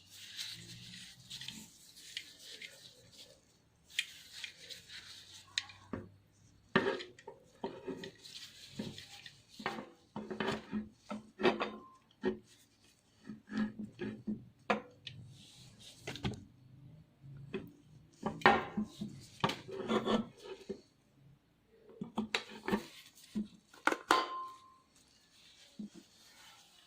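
Handling noises from an antique camera: irregular clicks, knocks and rubbing of its parts, with short pauses between.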